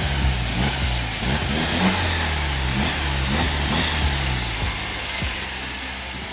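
Jeep Wrangler JL gasoline engine running through an aftermarket Magnaflow dual exhaust: a steady, low exhaust note that grows a little quieter near the end.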